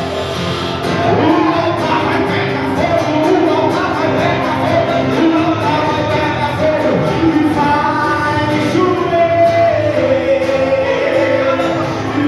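Music with singing: a sung melody over steady instrumental accompaniment.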